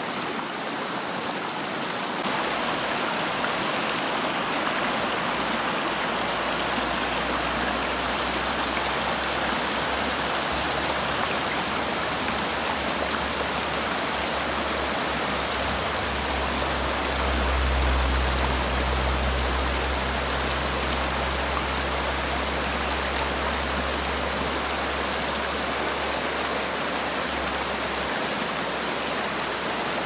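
Elwha River rushing over rapids: a steady hiss of fast-moving water, with a deeper rumble underneath that swells a little past the middle.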